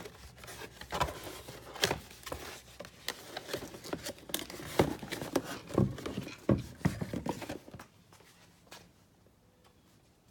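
Handling noise: an irregular run of clicks, knocks and rustles, as of small parts and packaging being picked up and set down, dying away about three-quarters of the way through.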